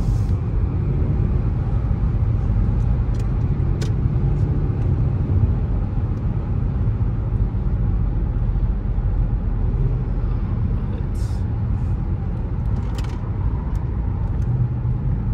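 Steady low rumble of road and engine noise inside a car's cabin while it cruises at highway speed.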